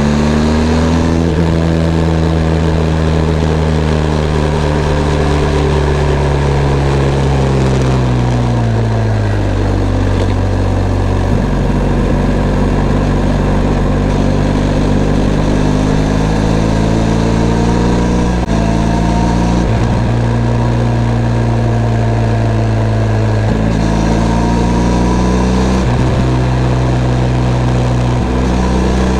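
Benelli TRK 502 X motorcycle's 500 cc parallel-twin engine running under way, its note easing down about eight seconds in, then changing abruptly in pitch several times as the rider shifts gears and the revs rise and fall.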